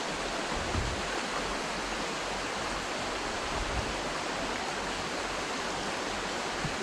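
Shallow creek water running over rocks in a riffle: a steady rushing hiss, with two faint low thumps in the first few seconds.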